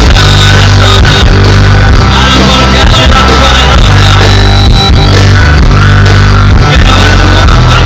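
Rock band playing live: loud, dense full-band rock music with a moving bass line.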